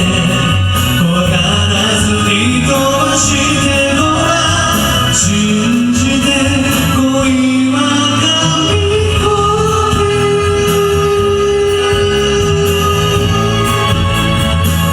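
Karaoke pop song: a backing track with a voice singing over it, including one long held note in the middle.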